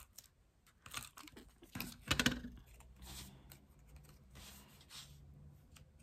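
Adhesive tape runner drawn across the back of a small paper sentiment, with crackly paper handling and a few clicks, loudest about two seconds in, then softer rustling as the sentiment is pressed onto a card.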